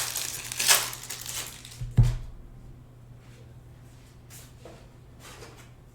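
Trading cards being handled on a table: a rustle, a soft knock about two seconds in, then faint scattered ticks.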